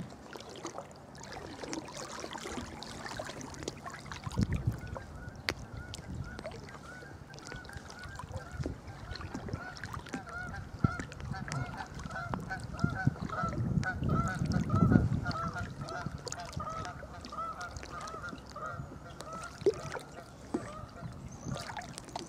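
Geese honking in a long, rapid series that starts about a third of the way in and stops near the end. Underneath is low sloshing of water around waders as someone wades through floodwater, loudest about two-thirds of the way through.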